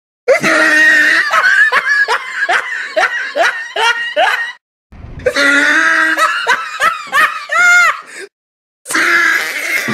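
Laughter in quick rising ha-ha bursts, about two a second, which cuts off abruptly twice and starts again each time in the same way, like a laugh sound effect played over and over.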